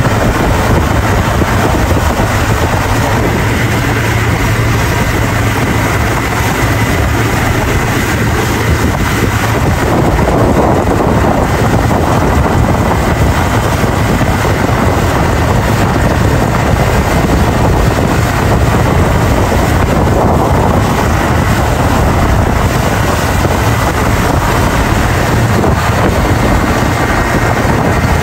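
Motorboat engine running steadily under way, with wind buffeting the microphone and the hiss of the churning wake, all loud and unbroken.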